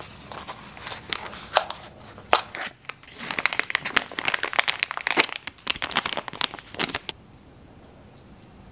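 Packaging opened by hand: a few crackles from a small cardboard box flap, then a clear plastic bag crinkling hard as it is handled and pulled open, stopping about seven seconds in.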